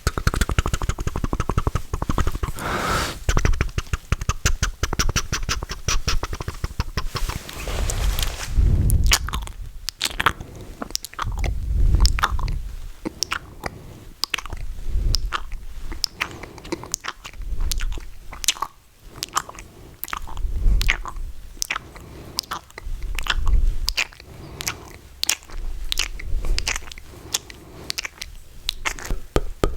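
Close-miked ASMR mouth sounds: wet tongue clicks and smacks. A fast run of clicking comes first, then slower separate clicks and pops with low thuds from the mouth close to the microphone.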